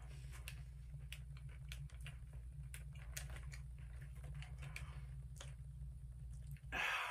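Doritos tortilla chips crunching as they are chewed, with crinkles of the foil snack bag, in many short irregular cracks over a steady low hum. A louder burst of rustling comes near the end.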